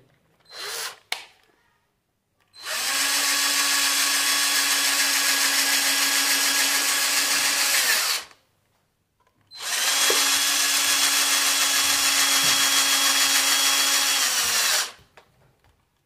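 Cordless drill-driver running in two long steady runs of about five seconds each, with a short pause between, driving the screws that fix a switch board plate to the wall box.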